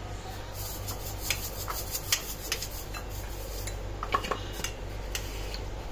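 Metal fork beating eggs in a ceramic bowl, clicking and scraping against the bowl in an irregular run of light taps, a few every second.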